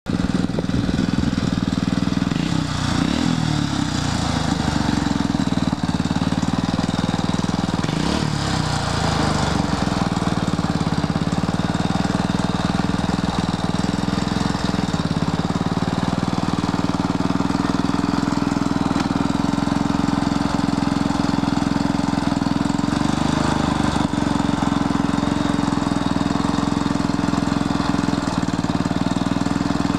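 ATV engine running steadily, revving up twice in the first ten seconds, as the four-wheeler sits bogged down in a mud hole.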